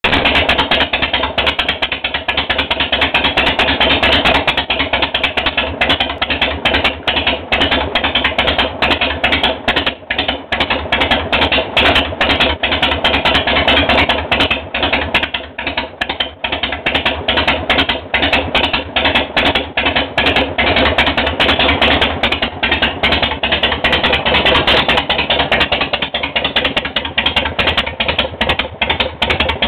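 1991 Harley-Davidson's air-cooled Evolution V-twin idling steadily through a custom-built, unfinished set of staggered drag pipes pieced together from three different exhaust systems, with a fast, even string of exhaust pulses.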